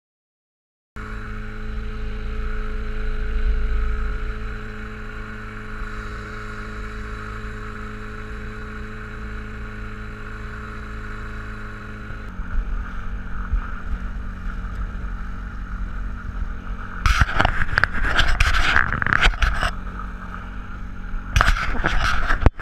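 Small boat's motor running steadily under way, its note shifting about halfway through. In the last few seconds loud bursts of spray and water slapping against the hull come and go over the engine.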